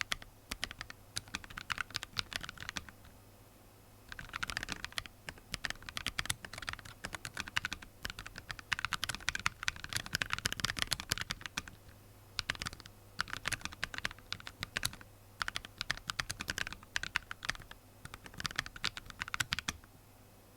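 Typing on a Cocot46Plus keyboard fitted with Jwick Vertex V1 factory-lubed linear switches (POM stems, PA66 housings): quick runs of keystroke clacks in bursts, with a pause of about a second three seconds in and shorter pauses later, stopping just before the end.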